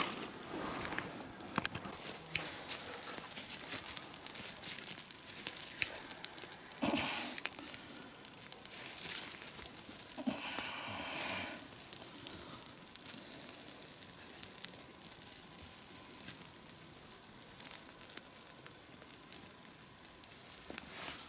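Twigs and kindling being broken and handled to build a campfire: irregular snapping, crackling and crumpling, with a couple of longer rustling stretches about a third and halfway through.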